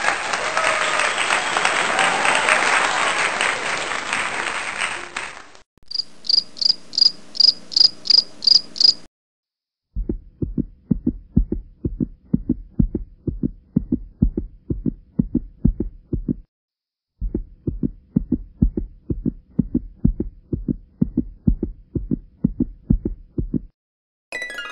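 An edited soundtrack of clips cut one after another. First about five seconds of dense noise, then about three seconds of regular high chirping pulses, then a steady low thumping beat of about three thumps a second with a brief break in the middle.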